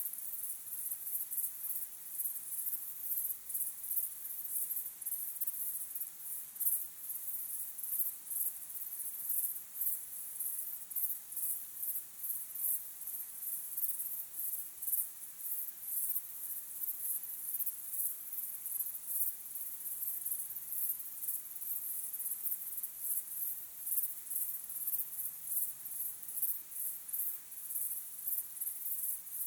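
Crickets chirping: a steady chorus of rapid, regular, high-pitched chirps that goes on without a break.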